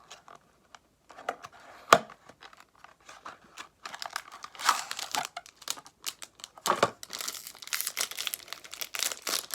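Foil trading-card pack wrapper being torn open and crinkled by hand, with a single sharp click about two seconds in and dense crackling from about four seconds on.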